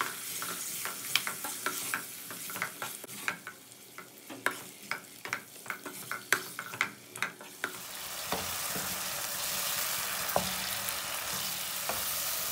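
Beef cubes frying in oil in a nonstick kadai, stirred with a wooden spoon: repeated sharp knocks of the spoon against the pan over the first several seconds, then a steady sizzle from about eight seconds in as the meat fries in its released juices.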